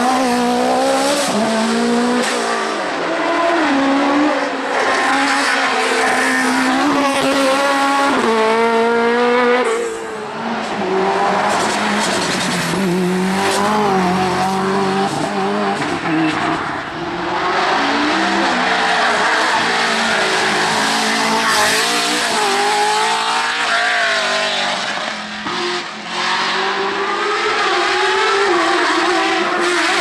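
Race car engines at full throttle, several cars in turn, revs climbing and dropping back again and again as they shift up through the gears.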